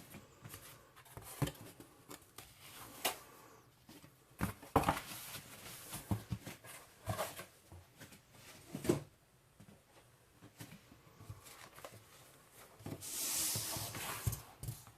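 Packaging being handled and opened by hand for a vinyl record: scattered crinkles, taps and rustles, with a longer rasp near the end.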